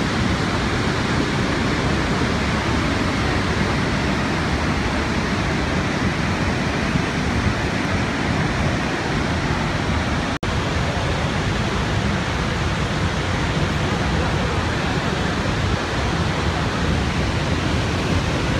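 Steady roar of Niagara's Horseshoe Falls, an even rush of falling water, with a momentary dropout about ten seconds in.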